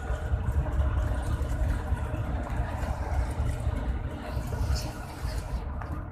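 Inside a coach at highway speed: a steady low engine and road rumble, with a few faint rattles near the end.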